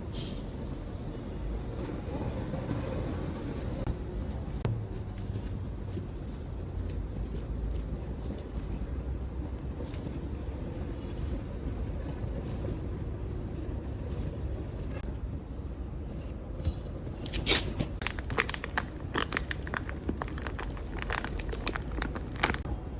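A squishy stress toy being squeezed and kneaded by hand, with a steady low rumble of handling noise and scattered scraping clicks. In the last few seconds come a quick run of louder crackling, crunching clicks.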